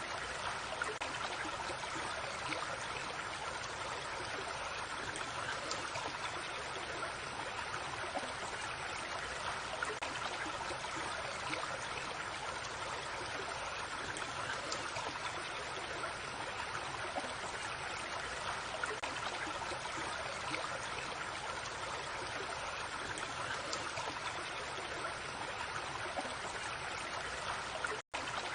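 A small stream flowing steadily, a continuous babble of running water. It cuts out for an instant near the end.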